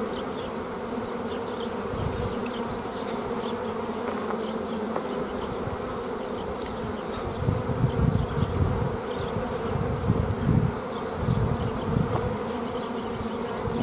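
Honeybees buzzing in a steady hum around an opened hive while its frames are being handled, with a few low rumbles in the second half.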